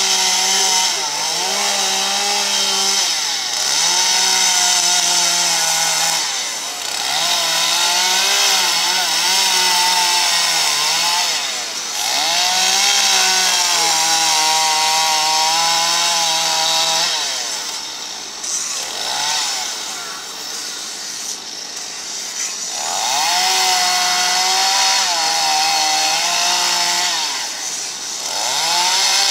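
Two-stroke chainsaw carving into a wood log, running at high revs. The engine note dips and eases off every few seconds as the bar bites and is lifted. It is quieter and lower for a few seconds a little past the middle.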